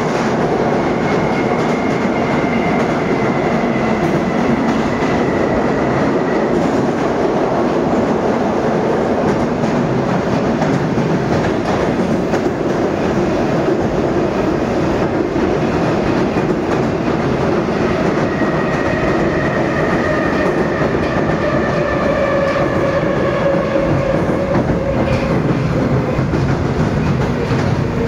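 Running noise heard inside a car of an 81-775.2 "Moscow 2024" metro train in motion: a steady, loud rumble of wheels on rail. A thin high whine sounds in the first few seconds, and a fainter whine falls slowly in pitch through the last ten seconds.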